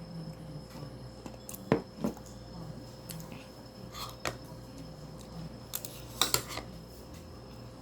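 Eating utensils clicking and tapping against a dish several times, the sharpest taps about two seconds in and again around six seconds, over a faint steady hum.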